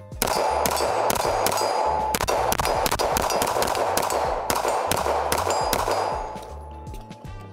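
A CZ Shadow 2 Compact 9mm pistol is fired in a string of shots, spaced from a fraction of a second to about a second apart. Steel targets ring after the hits, and the ringing fades out after the last shots.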